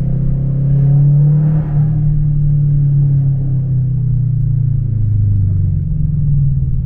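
A car's engine and exhaust running with a deep, steady drone; the pitch rises a little about a second in and drops lower about five seconds in.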